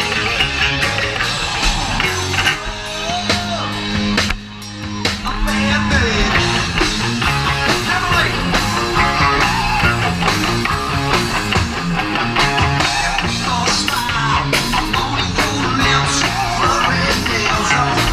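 Live rock band playing, with electric guitar, bass and drums. The level drops briefly about four seconds in, then the full band comes back in.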